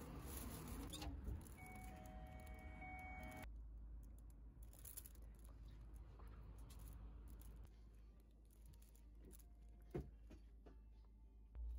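Near silence: faint room tone, with a few faint steady tones in the first few seconds and a single sharp click near the end.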